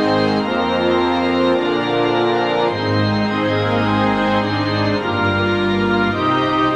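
Instrumental music: the tune of a Korean Holiness Church hymn played in held chords over a bass line, the notes changing about once a second.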